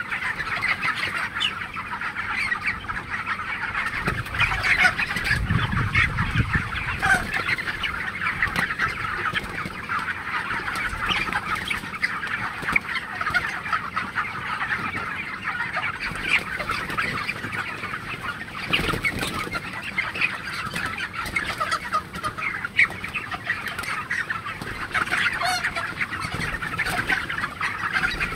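A large flock of 27-day-old broiler chickens clucking and cheeping all together, a dense continuous chatter of many overlapping short calls.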